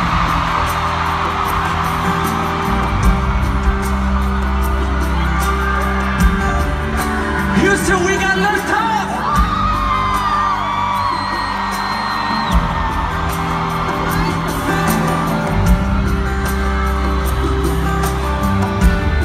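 Live pop concert music played loud over an arena sound system, with a steady bass line and singing, and fans whooping.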